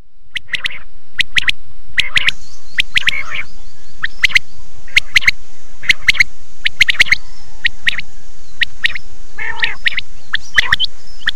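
Bird calls: a long run of short, sharp chirps at irregular spacing, several a second, over a steady hiss.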